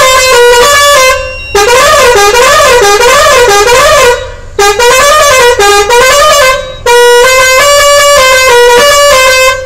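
Truck's musical pressure horn played from a push-button panel, sounding a loud horn tune in four phrases with brief pauses between them. Most phrases step from note to note, while the second warbles rapidly up and down.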